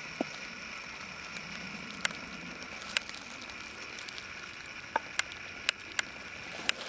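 Dry leaf litter and twigs crackling and snapping in a dry forest: about eight short sharp snaps, scattered irregularly over a faint steady background.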